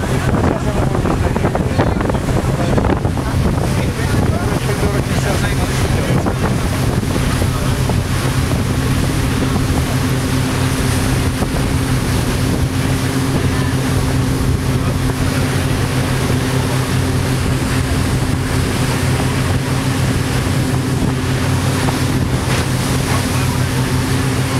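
Passenger ferry's engine running steadily under way, a low even hum with a higher tone that grows stronger about a third of the way in, over water rushing past the hull and wind buffeting the microphone.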